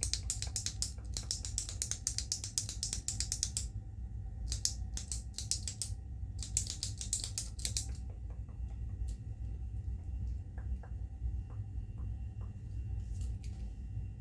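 A pen clicked and ticked close to the microphone: fast ratchet-like runs of sharp clicks, two shorter runs after a brief pause, then only scattered light ticks over a steady low hum.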